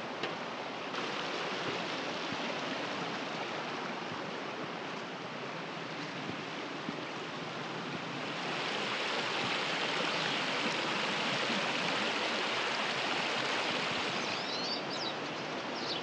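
Shallow, rocky mountain creek running over stones, a steady rush of water that grows louder about halfway through. Near the end, high chirping calls of pine siskins come in over the water.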